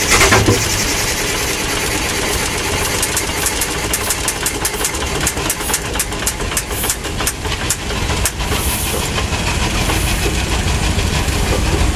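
Aultman-Taylor tractor's four-cylinder engine running steadily, with a run of sharp, irregular clicks from about three to eight seconds in.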